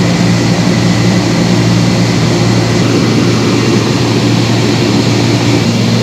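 Stokes Microvac rotary-piston vacuum pump (model 412-10, 10 hp motor) running: a loud, steady mechanical drone with a deep hum.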